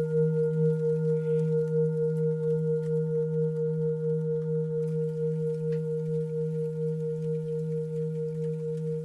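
A singing bowl ringing on after a single strike, with a deep low tone and fainter higher overtones. It has a slow pulsing waver and fades gradually.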